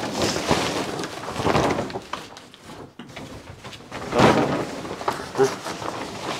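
Blue plastic tarp rustling as it is lifted, shaken out and folded by hand, in irregular surges with the loudest burst about four seconds in.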